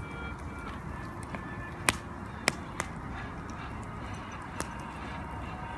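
Bamboo burning in a campfire: a steady low rush of the fire with four sharp cracks and pops, the loudest two about two and two and a half seconds in.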